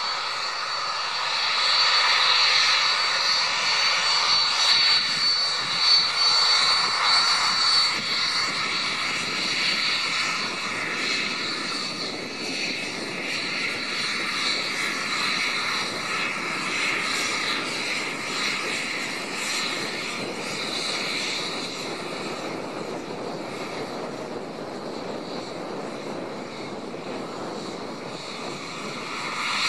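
Cessna 500 Citation's twin Pratt & Whitney Canada JT15D turbofans running at taxi power, a steady jet whine over a rush of engine noise. It is louder for the first several seconds and then slowly fades.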